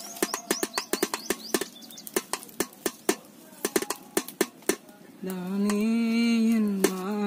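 Rapid sharp clicks and taps of a knife cutting slits into a raw whole chicken, with a few quick bird chirps in the first second or so. About five seconds in, a voice holds one long note for about two seconds, the loudest sound here.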